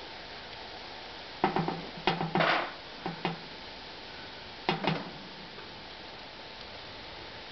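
Short bursts of clattering knocks on a galvanized metal garbage can lid as a squirrel scrambles over it, in four clusters over the first five seconds.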